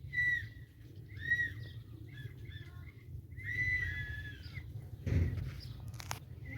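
An animal giving about four short, high-pitched calls that arch up and down in pitch, the last one longer, then a low thump near the end.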